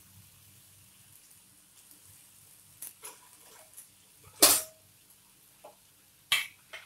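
Cornflour-coated baby potatoes frying in shallow oil in a steel kadhai, a faint sizzle, broken by several sharp clinks and knocks. The loudest is about four and a half seconds in and rings briefly like metal.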